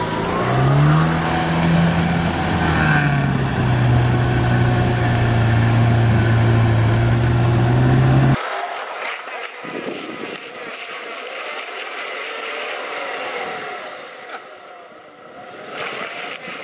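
Off-road SUV engine running hard under load through a muddy track: the revs climb about half a second in, ease a little about three seconds in, then hold steady. About eight seconds in it cuts off abruptly, and a fainter, noisier vehicle sound follows.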